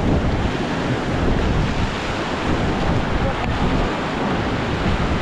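Whitewater of a river rapid rushing and splashing steadily, with wind buffeting the microphone.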